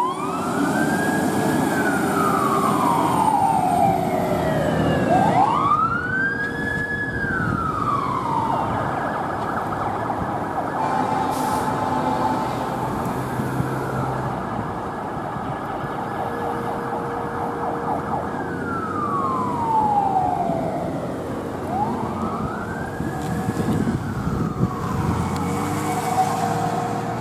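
Fire engine siren wailing in long, slow rises and falls, several cycles, with a stretch held at the top in the middle.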